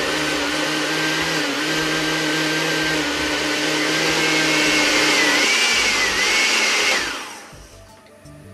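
Household blender running at its highest speed, grinding dry leaves in water, with a steady motor whine. About seven seconds in it is switched off and the motor winds down, its pitch falling away.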